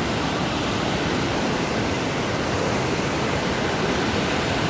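Waterfall's water rushing steadily as an even, loud roar of noise.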